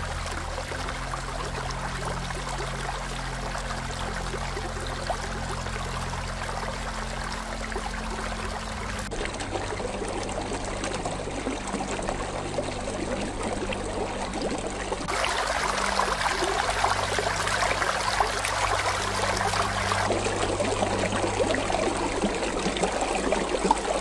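Partly frozen stream trickling and splashing steadily, with a few abrupt cuts between spots; the flow gets louder and busier about two-thirds of the way through.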